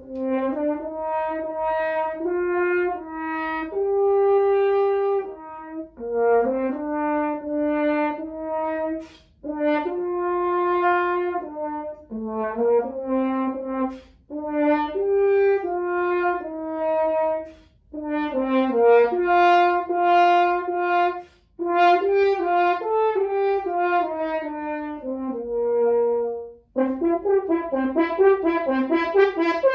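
A 19th-century French piston-valve horn plays a melody in phrases of held and moving notes, with short breaks for breath between them. About three seconds before the end a quicker passage of short, detached notes begins, played on the ascending piston horn.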